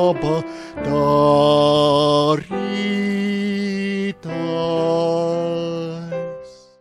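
A hymn sung in Latvian: the closing line in long held notes over a low sustained accompaniment, the last note fading away near the end.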